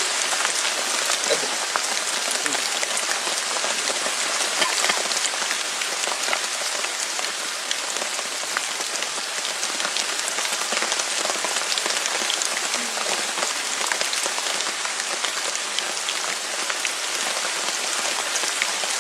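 Steady rain falling, a constant hiss with individual drops ticking now and then.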